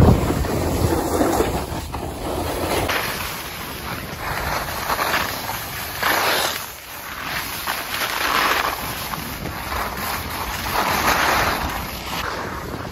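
Wind rushing over a phone's microphone while skiing downhill, with the hiss of skis on packed snow swelling every couple of seconds.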